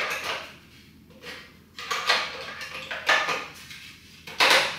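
The two half-circle pieces of a tower fan's base being handled and fitted together, giving a series of knocks and clatters with scraping between them. The loudest clatter comes near the end.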